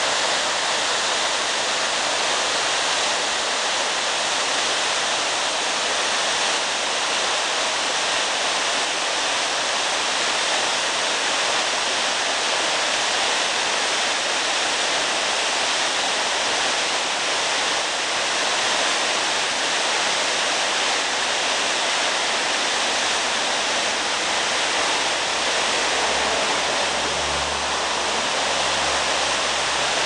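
Waterfall: a tall fall of water dropping down a rock face, making a steady, even rush that does not change.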